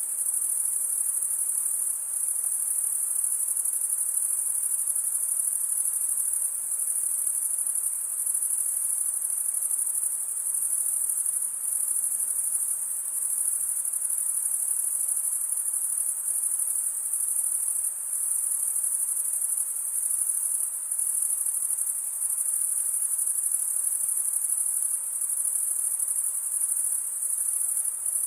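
Dense chorus of crickets chirring in a continuous high-pitched trill, with faint background hiss.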